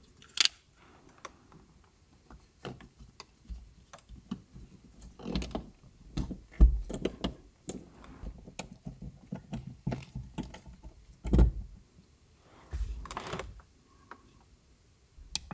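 Scattered small clicks and taps from a RaceBox Pro lap timer and its GoPro-style mount being handled and fitted to a roll-cage bar in the car's cabin, with two louder dull thumps partway through.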